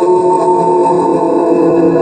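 Sustained ambient music: steady held tones like a drone or pad, with no clear beat.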